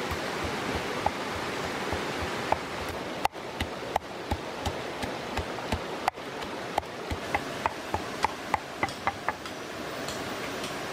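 Pestle knocking in a small mortar, pounding red chilies, garlic and salt: sharp knocks roughly twice a second, coming quicker toward the end, over the steady rush of a stream.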